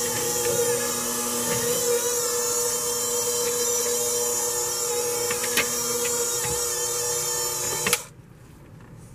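KitchenAid hand mixer running steadily, its twin beaters working a thick dough, with a few sharp clicks along the way. The motor switches off abruptly about eight seconds in.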